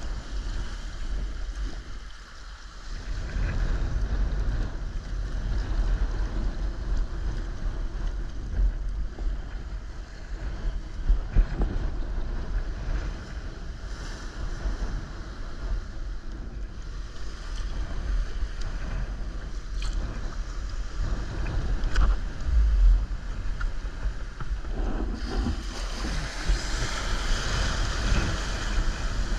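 Wind buffeting the microphone over sea water splashing along a kayak's hull. Near the end, small waves break and wash in foam around the bow in the shallows, adding a brighter hiss.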